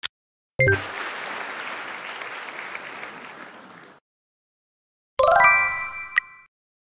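Quiz-video sound effects: one last tick of the countdown timer, then a ding followed by about three seconds of applause that fades out, marking the answer reveal. About a second later comes a bright ringing chime, with a sharp ding near its end.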